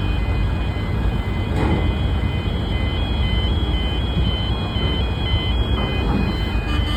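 Steady low engine rumble with a haze of mechanical noise, and faint high tones above it that step up and down in pitch.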